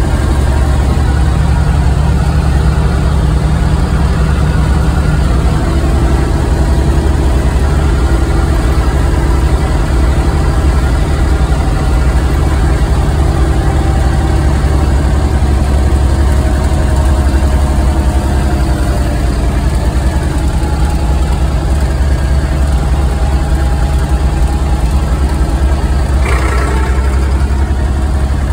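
Tractor diesel engine running steadily while the tractor drives downhill, heard from the driver's seat, with a single knock a couple of seconds before the end.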